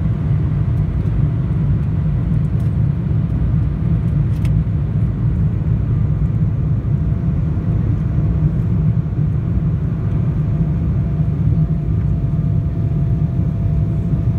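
Cabin noise inside an Embraer E175 at takeoff thrust during liftoff and initial climb. Its GE CF34-8E turbofans make a steady low rumble with a faint steady whine above it.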